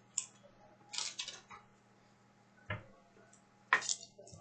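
Baseball trading cards being handled: scattered short, light clicks and scrapes, irregular and a few per second, with the strongest near the middle and just before the end.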